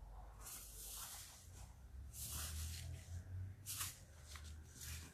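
Slime being squished and pressed, giving about four short, soft crackling squishes over a low hum.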